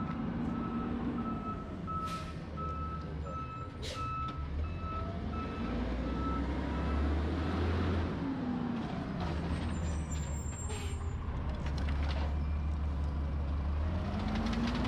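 Garbage truck's reversing alarm beeping about twice a second, stopping about seven seconds in, over the truck's engine running with its pitch rising and falling. A sharp sound about four seconds in.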